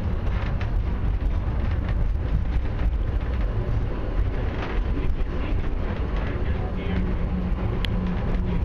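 Airport inter-terminal people-mover train running along its guideway, heard from inside the car: a steady rumble of the running gear, with a low hum coming in near the end and one short sharp high squeak about eight seconds in.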